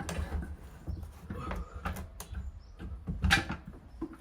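Irregular knocks, clicks and scrapes as a Peugeot Bipper's gearbox is heaved and manoeuvred back into place by hand, with a louder knock about three seconds in.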